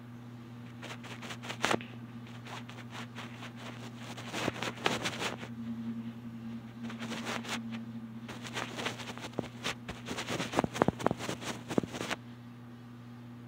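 A steady low electrical hum with irregular clicks and rustling. The clicks come in scattered clusters from about a second in, thickest near the end, then stop suddenly.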